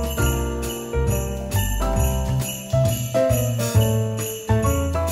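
Background music with jingle bells ringing in time over a bass line and a melody.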